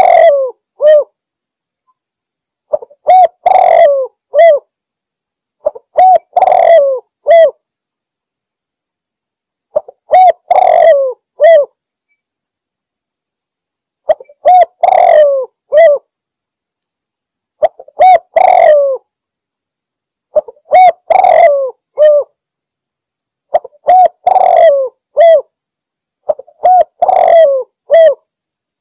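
Spotted dove (tekukur) cooing in repeated phrases: a short note, a longer rolling coo, then a clipped final note, given about every three to four seconds. It is the male's territorial call that challenges a rival.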